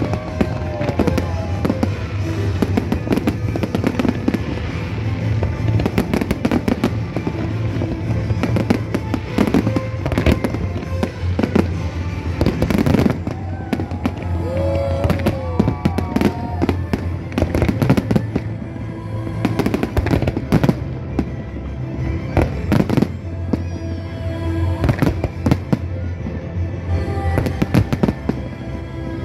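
Aerial fireworks display: a rapid, irregular, continuous run of bangs and crackles from bursting shells, with music playing underneath.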